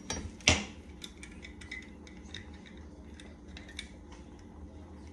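Dishes and cutlery being handled at a kitchen sink: one sharp knock about half a second in, then scattered light clinks and taps, over a steady low hum.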